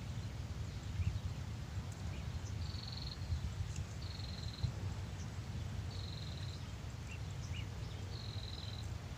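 A small animal's high, trilling call, repeated four times about every two seconds, each call lasting about half a second, over a steady low rumble.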